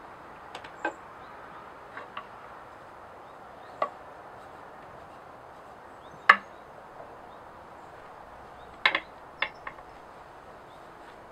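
Axes with wooden handles and birch bark sheaths being set down on a wooden log: a scattering of short, sharp wooden knocks, the loudest a little past six seconds in and a quick cluster near the end.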